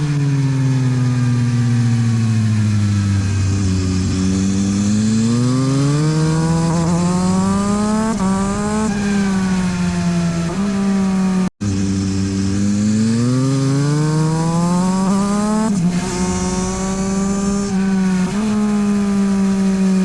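Yamaha MT-09 SP's three-cylinder engine through a LeoVince exhaust, ridden hard on track. The engine note falls as the bike slows, then climbs under acceleration through several upshifts, each marked by a short dip in pitch. The sound cuts out for an instant about halfway through.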